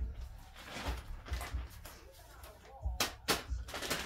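Plastic bags crinkling and rustling in hand. After a quiet start come several sharp crackles about three seconds in.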